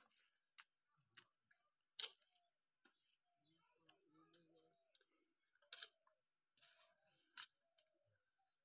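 Scattered sharp clicks and taps over near silence, three of them louder, about two, six and seven seconds in, with faint distant voices in between.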